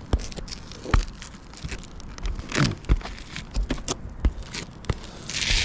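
Irregular knocks, scuffs and crinkling of shoes and hands moving over a roof while someone climbs onto it, with a longer scrape just before the end.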